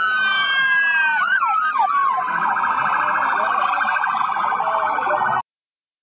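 Emergency vehicle sirens: several wailing tones gliding downward, then a fast warbling yelp from about two seconds in, cut off abruptly near the end.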